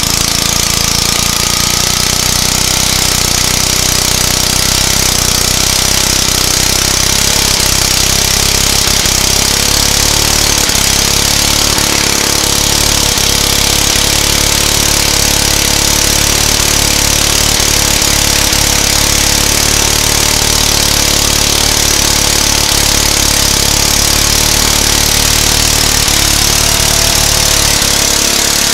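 Go-kart's small engine held at high revs during a burnout, with the rear tire spinning on the pavement. It runs loud and steady, at an even pitch.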